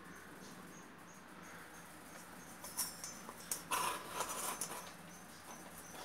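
Faint short high-pitched chirps repeating about three times a second over a low steady hum. A burst of rustling and knocking from handling the phone comes near the middle and is the loudest part.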